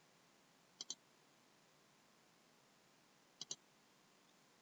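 Two quick double-clicks of a computer mouse button, one about a second in and another about three and a half seconds in, against near silence.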